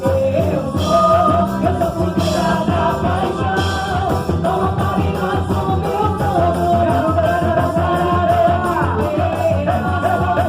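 Upbeat junina song with a steady beat and singing, the quadrilha's theme music.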